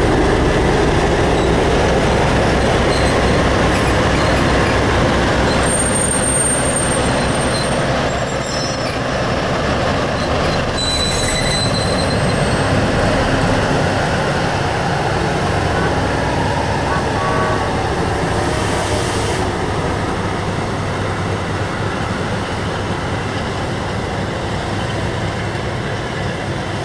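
Burlington EMD E5 diesel locomotive and stainless-steel Zephyr passenger cars rolling past, engines running and wheels rumbling on the rails, growing slowly fainter as the train draws away. Thin high wheel squeals come through about a third of the way in.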